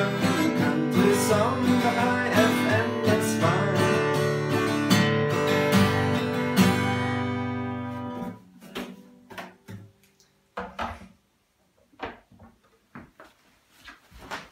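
Steel-string acoustic guitar strummed in a steady country rhythm, ending on a final chord that rings out and fades about eight seconds in. After that, only scattered soft knocks and clicks.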